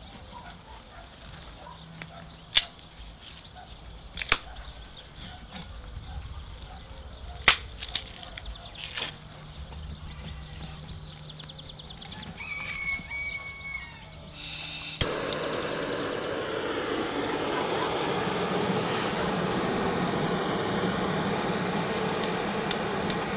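Split kindling sticks knocking against the steel feed port of a drum-style wood stove as they are pushed in: a handful of sharp clacks, a few seconds apart. About two-thirds of the way through, a handheld gas torch starts and then hisses steadily as its flame is played into the kindling.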